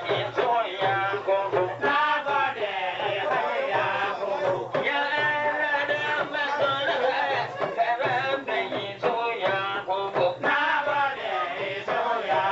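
A man singing a Hausa song in long melodic lines with short breaks, over a steady beat.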